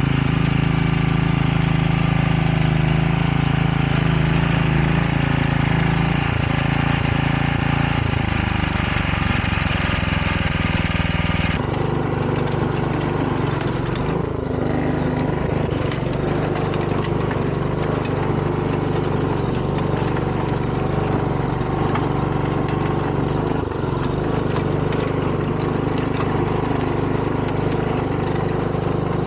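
Grillo walk-behind tractor's engine running steadily under load while its rotary tiller churns through the soil. About twelve seconds in the sound changes abruptly, with less low rumble and more high-pitched engine noise.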